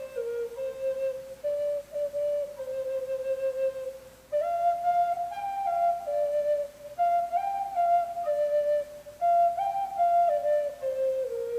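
Native American flute playing a slow solo melody in phrases that step down in pitch, with a short breath pause about four seconds in.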